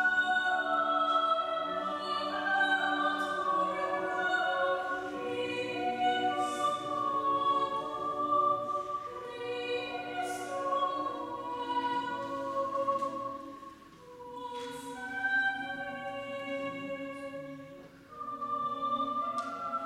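Choir singing a Lenten hymn in a church, sustained chords with sung consonants and reverberation; the singing drops away briefly twice, between phrases, near the middle and near the end.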